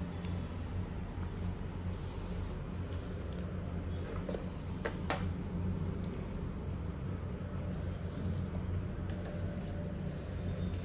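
Blu-ray packaging being handled: short rustling, rubbing sounds several times and a couple of sharp clicks about halfway through, over a steady low hum.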